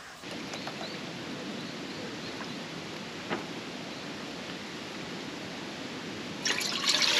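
Steady outdoor rushing noise with one short click about three seconds in, then a brief, louder rustling noise near the end.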